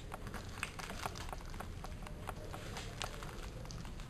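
Hands squeezing and mixing mashed cooked plantain and crumbled panela cheese on a plate. The sound is a string of quiet, small, irregular clicks and taps.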